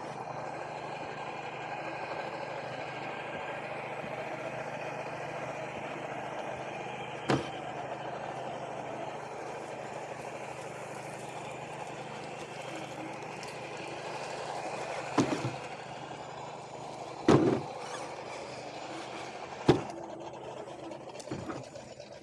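Electric motor and geared drivetrain of a scale RC crawler running steadily, heard through a camera mounted on its bonnet. Four sharp knocks break through as it bumps over the trail, the loudest a little past the middle.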